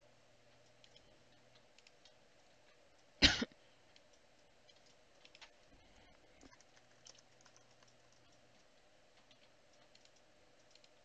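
Faint, scattered clicks of a computer mouse and keyboard, with one short loud sound about three seconds in.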